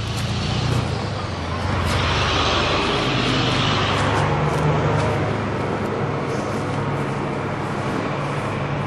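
A motor vehicle's engine running close by, its noise swelling between about two and four seconds in and then easing off, with a few faint clicks over it.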